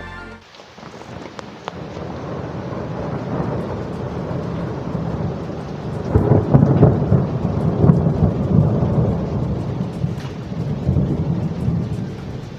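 Thunderstorm: rain falling steadily while a long roll of thunder swells up, loudest about six to nine seconds in, then eases back toward the rain.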